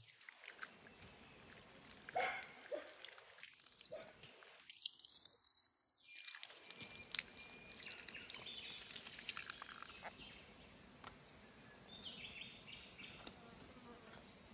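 Faint outdoor ambience of water dripping and trickling, with scattered light clicks and rustles.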